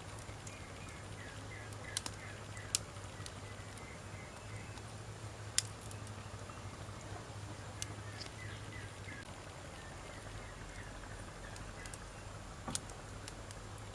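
Wood fire crackling, with a steady soft hiss and sharp single pops every second or two, the loudest about five and a half seconds in.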